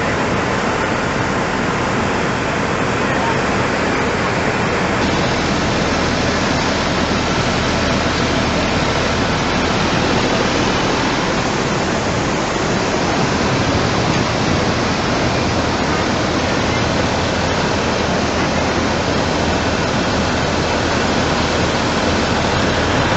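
Loud, steady rushing of a muddy flash-flood torrent carrying debris, a continuous noise with no letup that turns a little brighter about five seconds in.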